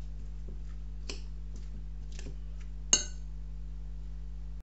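A utensil tapping and scraping lightly in a ceramic salad bowl while mixing, then one sharp ringing clink about three seconds in as it knocks against the bowl. A steady low hum runs underneath.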